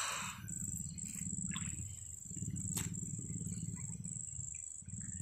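Night-time chorus of insects, a high steady trill, over a low pulsing animal drone, with a short rush of water splashing at the start as the wet gill net is lifted and a sharp click a little before three seconds in.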